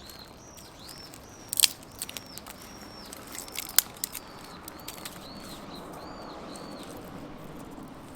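A small wood fire burning in a titanium wood stove, with a few sharp crackles and pops over a steady hiss. A bird calls over it in a quick series of short arched chirps.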